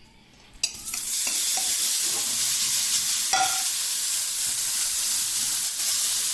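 Cut-up chuck eye steak pieces sizzling in a hot stainless steel skillet. The sizzle starts suddenly about half a second in and then runs steady, with a single clink of a utensil against the pan a few seconds later.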